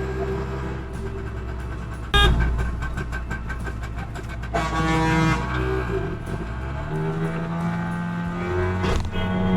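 Vehicle horns honking in road traffic over a steady engine rumble. A sudden loud horn blast comes about two seconds in, with more horn tones through the rest.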